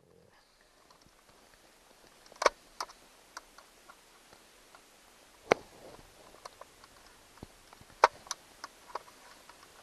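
Irregular clicks and taps of a slotted screwdriver working at the small screws and plastic housing of a dashboard LCD clock unit, with three sharper clicks about two and a half, five and a half and eight seconds in. The slotted screwdriver is the wrong tool for these screws and does not grip them.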